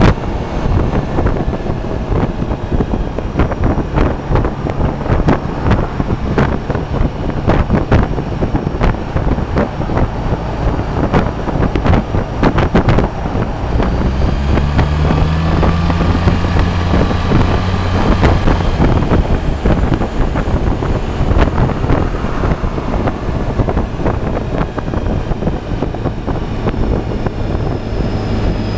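Suzuki Burgman 650 scooter riding at about 50 to 60 mph: wind buffeting the microphone over the low drone of its parallel-twin engine, the drone growing clearer about halfway through.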